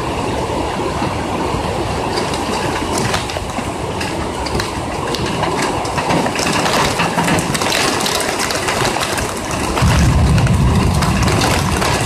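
Heavy rain drumming on a window ledge, with drops striking the phone's body close to the microphone as a dense patter of sharp ticks. A louder, deeper rumble sets in about ten seconds in.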